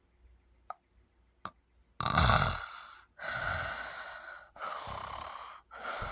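Sleep-apnea breathing: about two seconds with no breath sound apart from two faint clicks, then a sudden loud intake of breath as breathing restarts, followed by three long, noisy breaths a little over a second apart.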